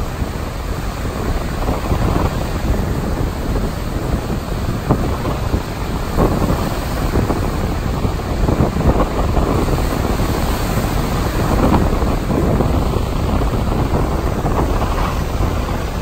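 Wind gusting against the microphone over the steady rush of breaking surf on a rough sea that is whipped up by an approaching typhoon.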